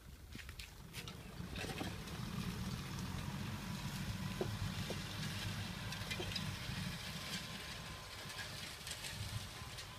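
Farm tractor engine running steadily with a low rumble while it works a tilled field, growing louder about two seconds in.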